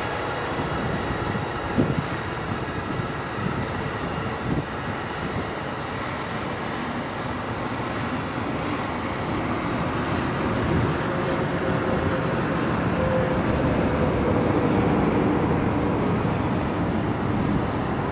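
Amtrak passenger train cars rolling past on the rails: a steady rumble of wheels on track, with a couple of short clicks in the first few seconds.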